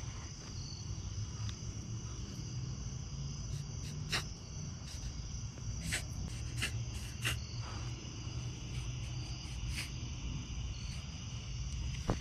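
Steady chorus of crickets, with a few single sharp clicks here and there.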